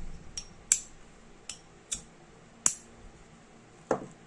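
Sharp metallic clicks from an S.T. Dupont Line D lighter being worked by hand, five of them over about two and a half seconds, then a duller knock near the end.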